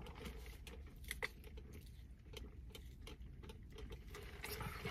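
Faint clicks and small mouth sounds of sipping fountain soda through a straw and swallowing, with one sharper click a little over a second in, over a faint low hum of the car cabin.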